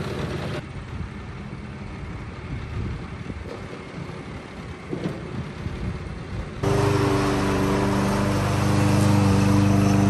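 A Swardman reel mower's petrol engine running quietly. About two-thirds of the way in, it gives way suddenly to a gas rotary push mower running much louder, with a steady engine hum.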